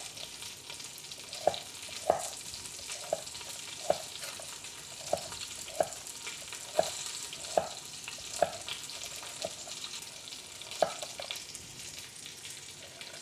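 Short ribs searing in a hot pan: a steady sizzle of fat, broken by a dozen or so sharp clicks with a short ring, spaced irregularly about a second apart.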